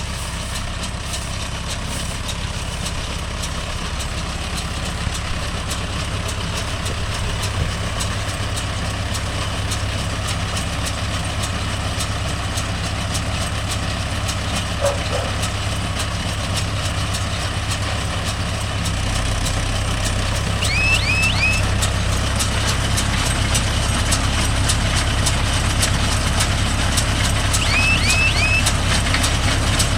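Mahindra Yuvo Tech Plus 585 tractor engine running steadily under load while driving a Bharat baler, with a fast even ticking from the machinery; it grows a little louder about two-thirds of the way through. Two sets of three quick high rising chirps sound near the end.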